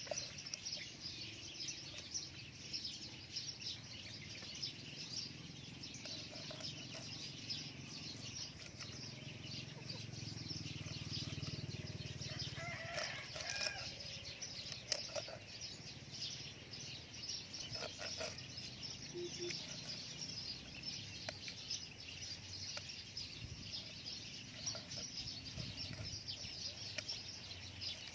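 Chickens clucking, with a steady high chirping haze of small birds and a few soft knife taps on a wooden chopping board as fish is filleted.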